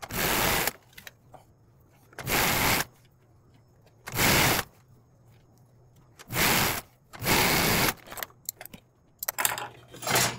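Pfaff 130 sewing machine stitching in short runs, about seven, each under a second, with a faint steady hum in the pauses between.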